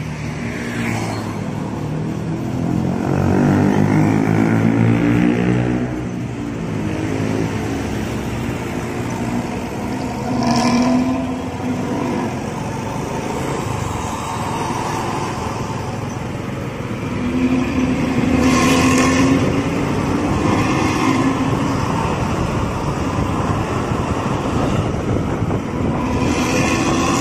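Intercity bus diesel engine with its deep, snoring 'ngorok' exhaust, running hard as the bus drives on. The engine note swells and rises in pitch twice, a few seconds in and again past the middle.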